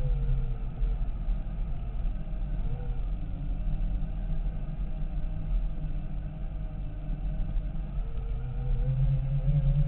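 Segway x2 personal transporter running along a gravel track: its electric drive whines, the pitch dipping and rising with speed and climbing near the end, over a steady low rumble.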